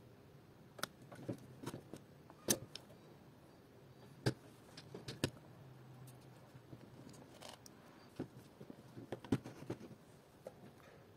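Scattered light clicks and knocks at irregular intervals from handling an acrylic robot chassis fitted with plastic gear motors on a cutting mat during soldering.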